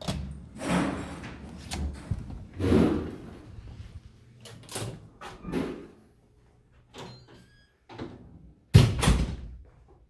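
A string of knocks and thuds with short rustling swishes, as of doors or fittings being handled in a small room, the loudest near the end.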